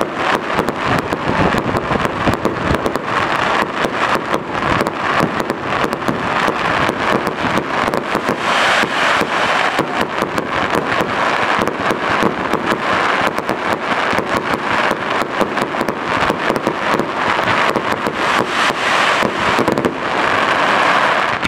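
Professional fireworks display going off continuously, with a dense run of sharp bangs and crackling and bursts of crackle swelling several times.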